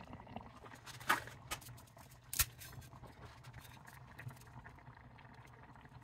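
Kitchen handling noises: a run of light clicks and taps over a low steady hum, with two sharper knocks about one and two and a half seconds in.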